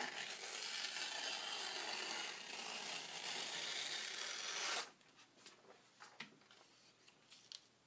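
A sheet of Anita's vellum (translucent paper) being torn by hand: a steady rasping rip that lasts nearly five seconds and stops abruptly, followed by a few faint paper ticks.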